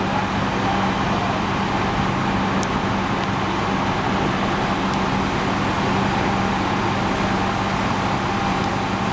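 Fire engine's diesel engine running steadily at the fireground, a constant low hum under an even rush of mechanical noise.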